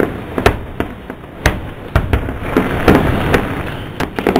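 Aerial fireworks shells bursting one after another: a run of sharp bangs, with a stretch of crackling in the middle.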